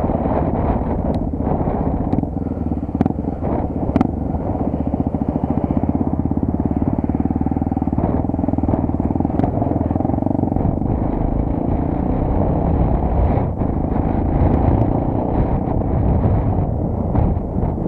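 Honda XR250 Tornado's single-cylinder four-stroke engine running steadily as the motorcycle is ridden, with a few sharp knocks in the first few seconds.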